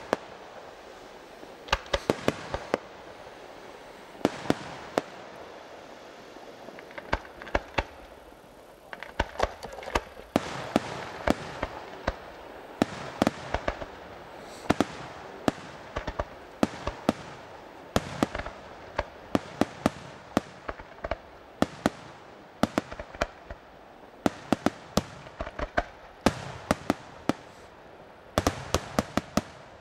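Aerial firework shells of a fireworks display bursting: many sharp bangs in irregular clusters, some fired in quick runs, with a noisy haze between the bangs.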